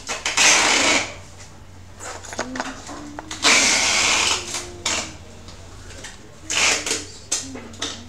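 Three short bursts of hissing noise, the middle one about a second and a half long, with a dog whining in a thin, wavering tone between them from about two seconds in.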